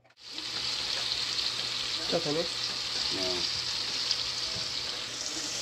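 Sliced zucchini, snow peas and red bell pepper sizzling in a hot stainless steel skillet: a steady frying hiss.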